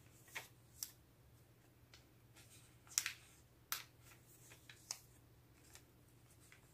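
Thin pages of a Hobonichi A6 planner, Tomoe River paper, being turned by hand. Faint brushing is broken by a handful of sharp, crisp page flicks, the loudest about three seconds in.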